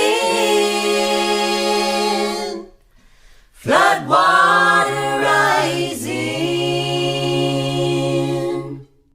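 Unaccompanied voices singing long held chords, breaking off for about a second around a third of the way in, then resuming and stopping just before the end.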